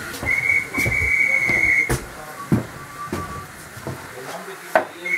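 Railway whistle on a heritage steam line blowing a steady high note, a short blast and then a longer one, with another starting near the end. Sharp clicks come about two seconds in and near the end.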